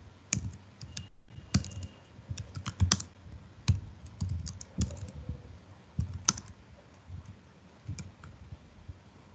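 Typing on a computer keyboard: scattered, uneven keystrokes with short pauses between them.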